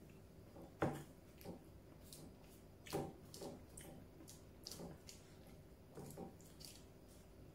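Quiet eating sounds: chewing with short wet mouth clicks and fingers squishing rice on a foil-lined plate, with soft knocks about a second and three seconds in.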